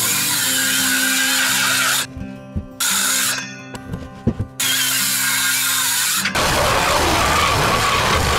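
A power tool running in several blocks of a few seconds each, each starting and stopping abruptly, over steady background music.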